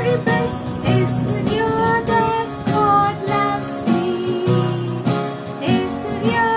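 A children's song: a sung melody with a female voice over strummed acoustic guitar.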